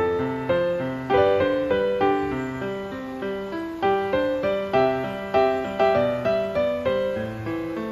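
Background piano music: a gentle run of single notes and chords, several a second, each struck and fading.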